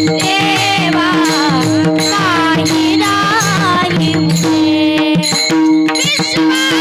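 Marathi Varkari kirtan music: a woman sings a devotional melody with wavering ornaments, over a steady sustained drone and a hand drum keeping a rhythm of strokes.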